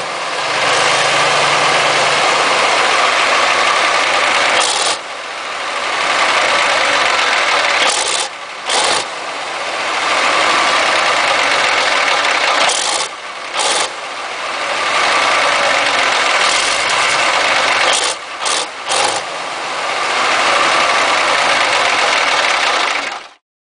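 Soviet V-2 38-litre V12 diesel engine from a T-34/85 tank, running loud on a test stand. Its level drops briefly several times and comes back up, and the sound cuts off suddenly near the end.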